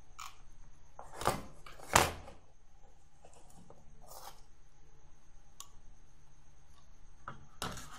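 Clicks and knocks of a printed circuit board being handled and turned over on a wooden desk while a capacitor is desoldered, the two loudest about a second and two seconds in, with a few lighter taps later. A faint steady hum runs underneath.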